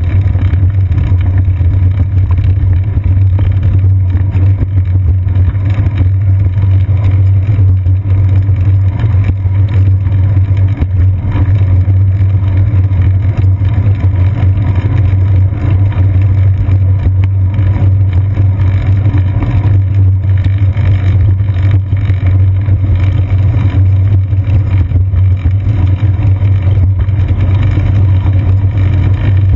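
Steady, loud low rumble of a bicycle rolling over pavement, picked up as frame vibration by a seat-post-mounted GoPro in its housing, with small irregular knocks from bumps in the surface.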